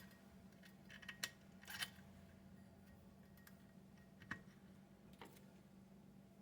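Faint, scattered small metallic clicks and taps of screws and a screwdriver as an assembly is screwed into a metal fare box, five or six clicks seconds apart, over a faint steady hum.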